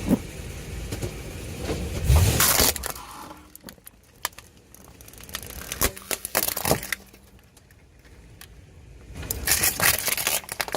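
A car tyre rolling over and crushing things, with crunching and sharp cracking: a loud crunch about two seconds in, a few snaps around six seconds, and another burst of crackling near the end, over a low engine rumble.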